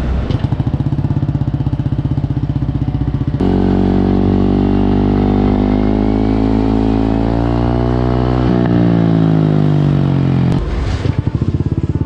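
Yamaha NMAX v2 scooter's single-cylinder four-stroke engine running through a Villain aftermarket exhaust with its silencer insert fitted: idling with a quick pulsing beat, then revved about three seconds in and held, the pitch climbing slowly, before dropping back to idle near the end.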